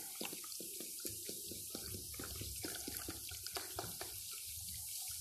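Ginger beer poured from a plastic bottle into a slow cooker already full of liquid: an irregular run of glugs, small splashes and plops, a few each second.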